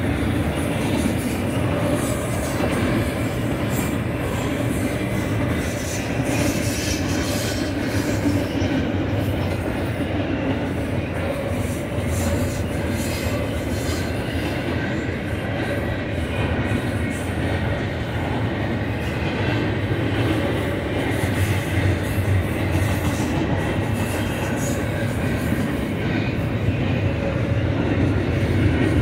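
Double-stack intermodal train's container well cars rolling past at speed: a steady rumble and clatter of steel wheels on the rails, with a faint high wheel squeal from the curve.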